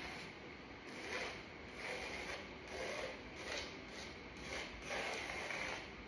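Pencil scratching across a primed canvas in a series of short strokes, about one or two a second.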